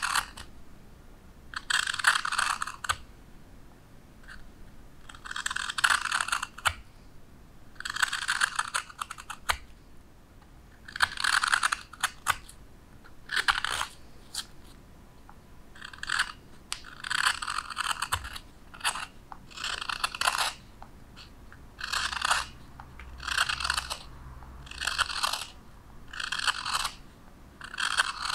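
Hook knife (spoon knife) scooping shavings out of the bowl of a wooden spoon: a series of short scraping cuts, roughly one every one to two seconds, coming closer together in the second half.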